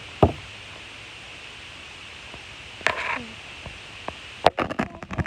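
Scattered sharp clicks and taps over a steady hiss, with a short pitched sound about three seconds in and a quick run of clicks near the end.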